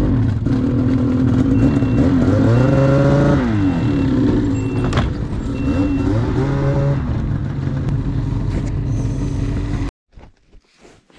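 Ski-Doo snowmobile engine running as the sled backs off a truck deck, revving up and dropping back twice, with its reverse warning beeper giving short, evenly spaced beeps. A single sharp knock about five seconds in.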